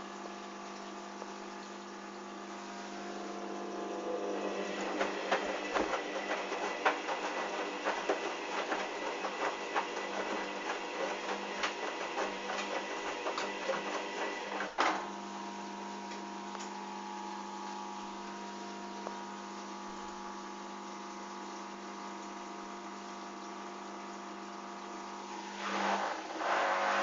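Hoover Dynamic washing machine in its spin with a badly unbalanced load: the motor runs with a steady whine while the drum knocks and clatters rapidly from about four seconds in, ending in a sharp thump about halfway. The machine then runs more steadily and starts picking up speed again near the end.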